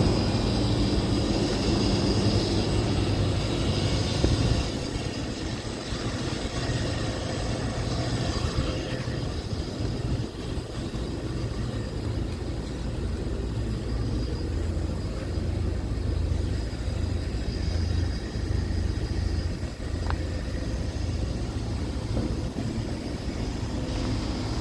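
Outdoor heat pump condensing units running: a steady low compressor hum under the whoosh of the condenser fans, louder for the first few seconds and then settling.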